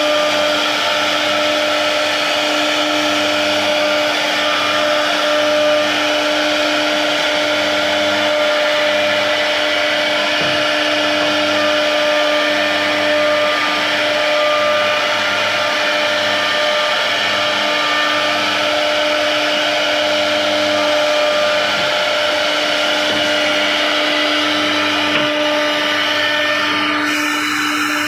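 CNC router spindle running steadily as its bit cuts a carved furniture design into wood: a constant whine over a rough cutting hiss, which thins out near the end.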